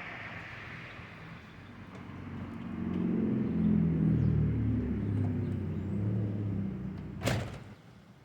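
A car engine going by: it swells a few seconds in, shifts pitch in steps as it pulls away, then fades out. One sharp click comes near the end.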